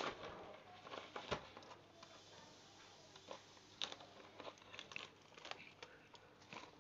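Plastic wrap and bubble wrap crinkling faintly in irregular crackles as hands pull it off a cardboard box, with a few sharper crackles, one about a second in.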